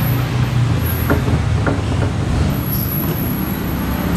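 A machine runs with a steady low hum. Two small clicks come about a second and a second and a half in.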